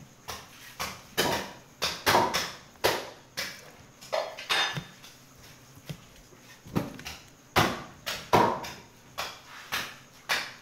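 Butcher's knife working through a beef hindquarter: a run of irregular short slicing and scraping strokes against meat and bone, with knocks of the meat and blade on the table.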